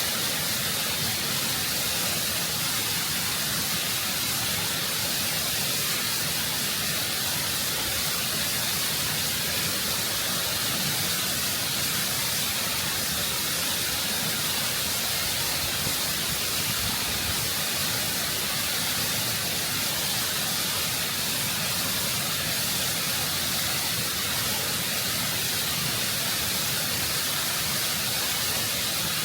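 Waterfall water rushing and cascading over rock, close up: a constant, full hiss of falling water and spray that stays steady throughout.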